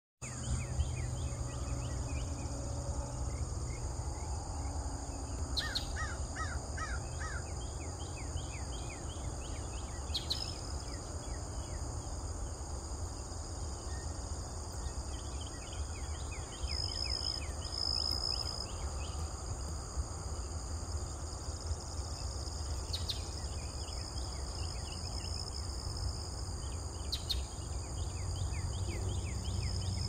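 Outdoor garden ambience: insects trill steadily and high, over a steady low rumble, with runs of short bird chirps and a brief series of four calls about six seconds in.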